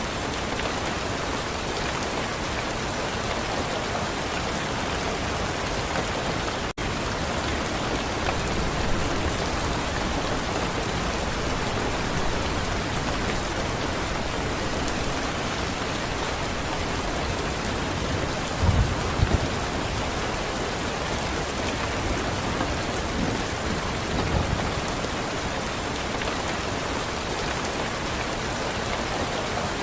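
Steady rain, an even hiss of drops falling on a surface. The sound drops out for a split second about a quarter of the way in, and a few short low thuds come about two-thirds and four-fifths of the way through.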